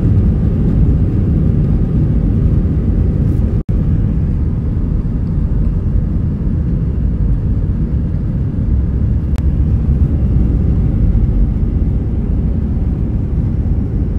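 Steady, loud low rumble of engine and airflow noise inside an airliner cabin, heard from a window seat as the plane moves on its departure.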